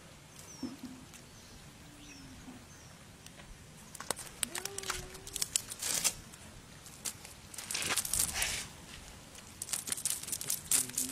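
Irregular bursts of rustling, crinkling and scraping as a fish is worked out of a nylon cast net on gravelly ground, the fish flopping on the ground and the sinker-weighted net being gathered up.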